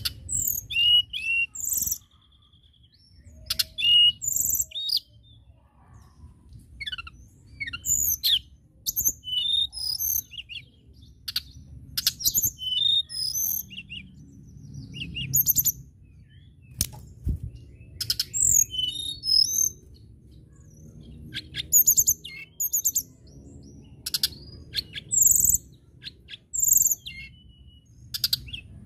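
Blue flycatcher (tledekan, Cyornis) singing: short, high, rapid phrases of whistled notes and trills, repeated with brief pauses between them.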